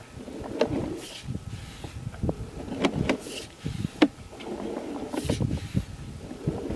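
Sewer inspection camera's push cable being pulled back out of the line: irregular rubbing and clicking with short hissing scrapes every second or two.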